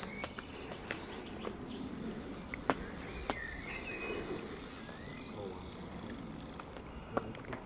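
Quiet outdoor ambience with a few short bird chirps and scattered faint clicks.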